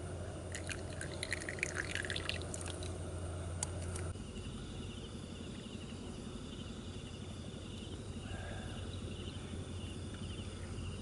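Liquid poured in a thin stream from a spout into a wooden kuksa cup, trickling and dripping for about four seconds. After that comes a steady, pulsing high trill.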